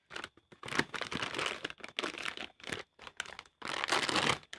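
Plastic parts packet crinkling and rustling in a series of irregular bursts as it is handled and opened.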